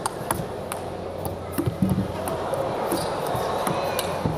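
Table tennis ball clicking off bats and table in a rally, one player defending from well back from the table. A crowd murmur builds under it from about halfway through.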